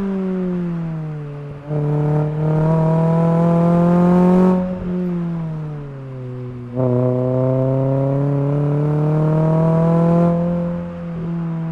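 Renault Clio 3 R.S. Cup's naturally aspirated 2.0 four-cylinder engine through an Akrapovič Evolution full exhaust, heard from inside the cabin. The engine pulls with rising revs, the throttle is lifted and the note falls, then it picks up again, twice in a row, with the throttle coming back on about two seconds in and again past the halfway mark.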